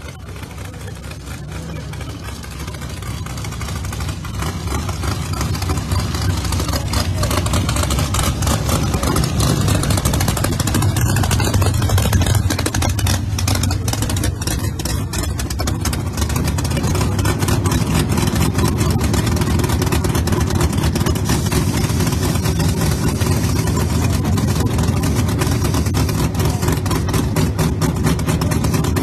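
A drag-race Corvette's engine idling with a rapid, rough pulsing beat close by. It grows louder over the first several seconds, then stays steady and loud.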